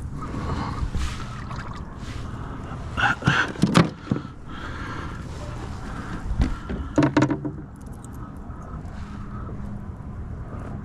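Steady low rumble of outdoor wind and water noise on a fishing kayak, with short bursts of handling noise from bait and tackle about three seconds in and again about seven seconds in.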